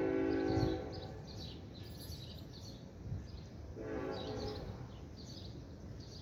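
Train horn sounding a multi-tone chord: a long blast that cuts off about a second in, then a short blast about four seconds in. Birds chirp in the background.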